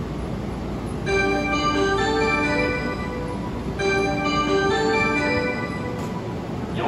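Station departure chime: a short bell-like electronic melody played twice over the platform, signalling that the train's doors are about to close, over a steady low hum.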